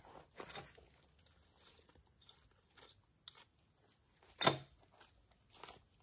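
Scattered short crunches and rustles from gear being handled at a wooden picnic table and from footsteps on dry leaf litter, with one much louder crunch about four and a half seconds in.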